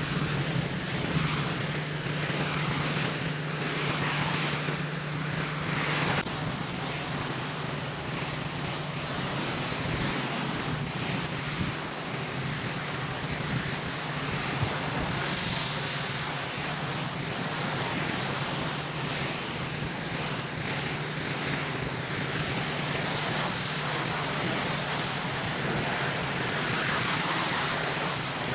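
Pressure washer running steadily: a constant engine hum under the hiss of high-pressure water spraying concrete, with a few brief sharper hisses.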